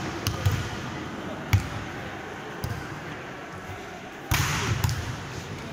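Volleyball being hit: a sharp smack of the ball about a second and a half in and a few lighter knocks. Just after four seconds, as a player hits at the net, there is a sudden burst of noise with players' voices.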